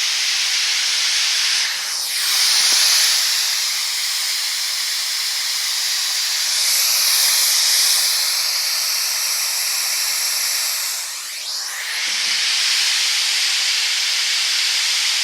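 BlackBerry Torch 9810 loudspeaker blasting a loud, steady white-noise hiss, a fault the owner puts down to the phone having been charged too long. The hiss shifts in tone twice with a sweeping sound.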